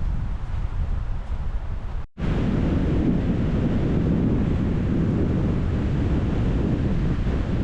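Strong wind roaring through the forest canopy, with wind buffeting the microphone. The sound drops out for an instant about two seconds in and comes back louder.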